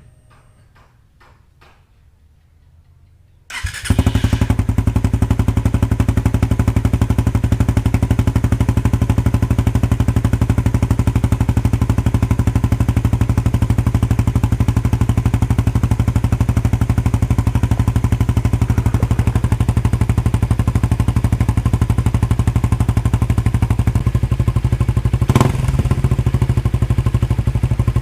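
Suzuki Raider R150 Fi's single-cylinder engine breathing through an aftermarket Racingline back-pressure exhaust: it starts about three and a half seconds in, then idles steadily, with a brief sharp blip near the end.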